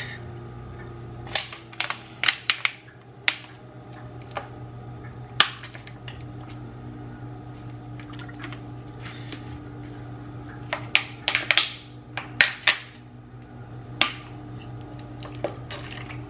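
Sharp clicks and crinkling crackles of a thin plastic water bottle being handled and drunk from, in clusters, over a steady low hum.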